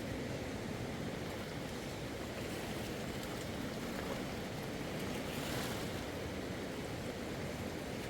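Steady rushing of river water, with a brief rise in hiss about five and a half seconds in.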